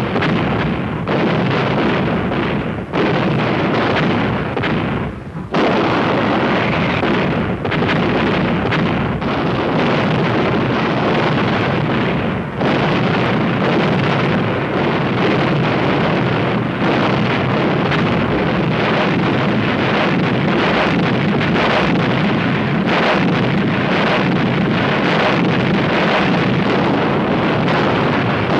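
Artillery barrage and explosions, a continuous din of many overlapping blasts, on an old 1951 film soundtrack.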